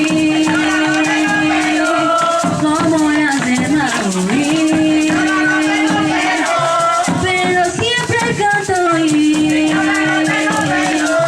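A voice singing a slow melody in long held notes, accompanied by maracas shaken steadily throughout.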